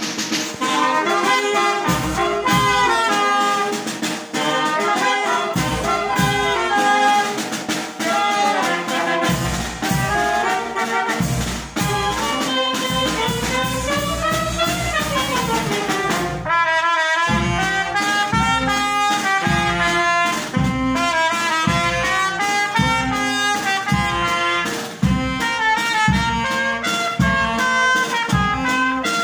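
Live Mexican wind band (banda de viento) of saxophones, trumpet and clarinet playing over snare and bass drum, which keep a steady beat. About fourteen seconds in, a long note slides up and back down.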